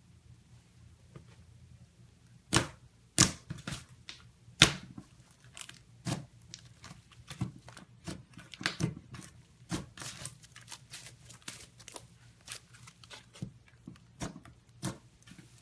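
Slime being handled, giving irregular sharp pops and crackles that start about two and a half seconds in, the loudest in the first few seconds.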